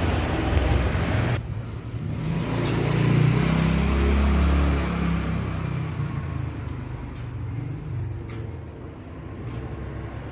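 A motor vehicle passing on the road: a low engine rumble that swells about three to four seconds in and then fades, over a steady traffic hum.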